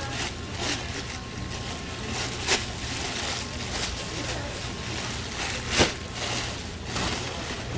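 Hot oil sizzling steadily as a batch of Korean fish cake (eomuk) sticks deep-fries in a stainless steel fryer. A sharp knock comes about two and a half seconds in, and a louder one near the end.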